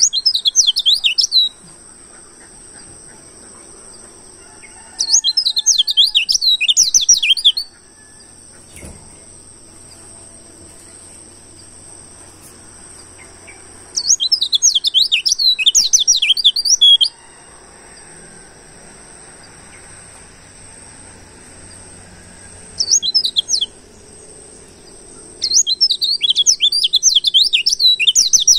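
Wild white-eye (pleci) song: bouts of rapid, high twittering warble lasting one to three seconds, repeated five times with pauses between. A steady faint high hiss runs underneath.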